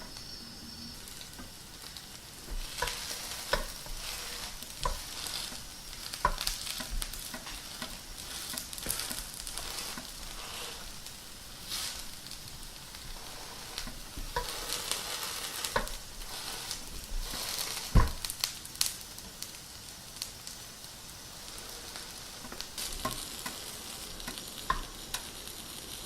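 Kimchi pancake frying in oil in a pan: a steady sizzle, broken by scattered short clicks and knocks against the pan, the loudest a single sharp knock about eighteen seconds in.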